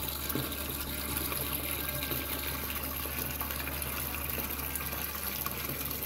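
Water pouring steadily from a half-inch copper pipe into a toilet tank, filling it with rainwater fed by a 12-volt transfer pump. The tank is still filling, its level rising toward the float switch that will cut the pump off.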